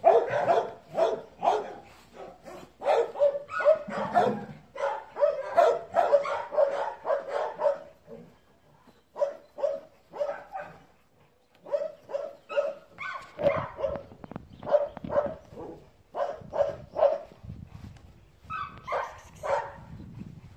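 A dog barking over and over, about two to three barks a second, with short breaks about eight and eleven seconds in.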